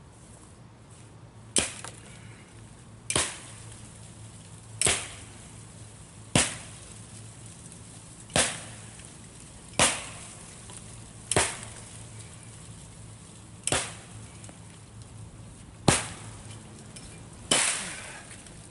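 Axe chopping into wood, ten sharp strikes at a steady pace of about one every one and a half to two seconds.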